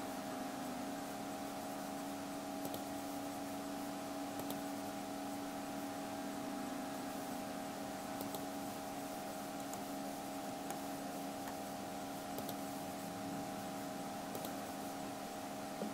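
Steady background hum with a few fixed tones, typical of a computer's fan or electrical hum, with faint mouse clicks now and then.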